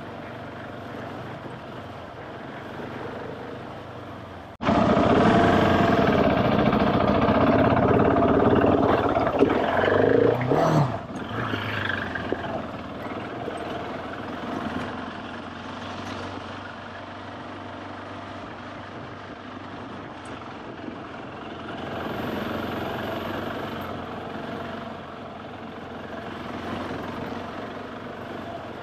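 Adventure motorcycle engine running as it rides along a trail. It becomes suddenly much louder about five seconds in, stays loud for about six seconds, then drops back to a steadier, quieter running.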